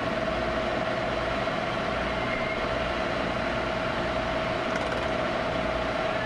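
End mill on a vertical milling machine cutting a clamped metal plate: a steady whining tone over the noise of the spindle and the cut, unchanging throughout.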